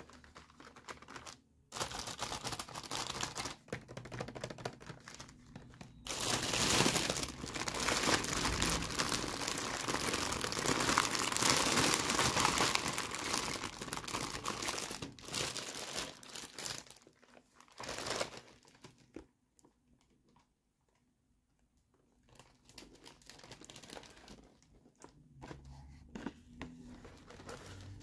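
Clear plastic bags crinkling and rustling as hands handle and open bags of plastic doll toys. It is loudest and densest through the middle, drops to a brief near-silent lull about two-thirds through, then comes back more softly.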